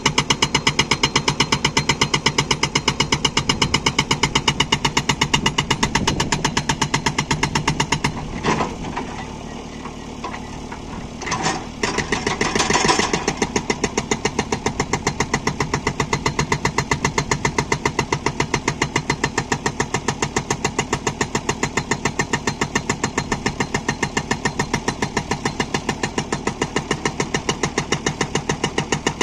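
Hydraulic breaker on a JCB 3DX backhoe loader hammering hard stone in rapid, even blows, with the diesel engine running under it. The hammering stops for a few seconds about a third of the way in, with a few single knocks, then starts again and runs on steadily.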